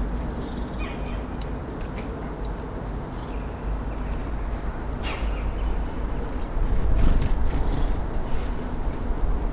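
Outdoor ambience: a steady low rumble that swells near the end, with a few short, faint bird chirps and scattered light ticks.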